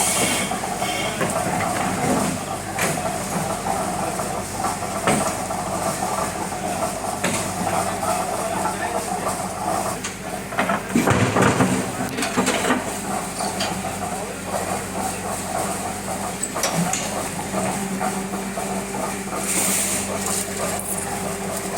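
Concrete block-making machinery and a concrete mixer running steadily with a motor hum, a louder rattling burst about halfway through, and a new steady tone coming in near the end.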